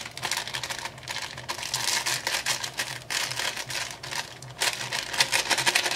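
Thin plastic bag crinkling with many small crackles as hands squeeze and rub it to empty powder into a bowl.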